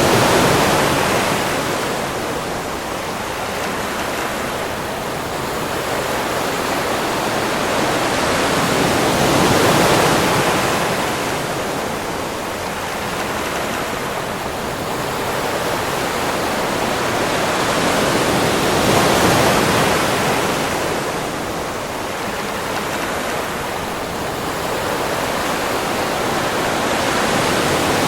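Sea waves washing onto a beach in a continuous rush, swelling and falling back about every nine to ten seconds.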